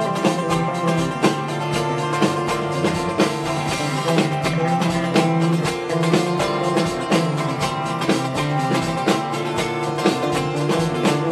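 Live country band playing an instrumental passage: acoustic guitar and electric bass over a steady drum beat.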